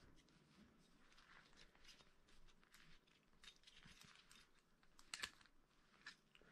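Faint rustling of a cloth wiping down a baitcasting reel, with small scattered clicks from the reel being handled and a sharper click a little after five seconds in.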